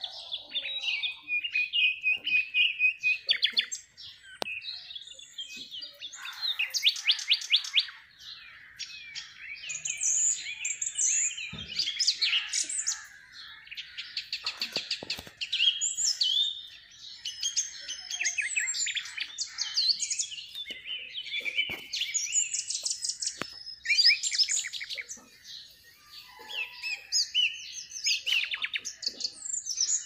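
Alexandrine parakeet chirping and chattering almost without pause: a stream of high whistles, squeaks and quick trills, with a few short lulls.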